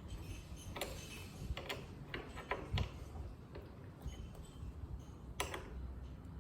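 A handful of irregular light clicks and taps from small metal parts and hand tools being handled while fitting a motorcycle's rear brake light switch, the loudest a little under halfway in.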